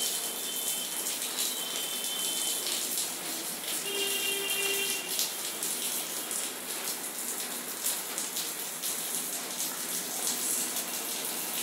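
Steady background hiss, with a few faint short high tones near the start and about four seconds in.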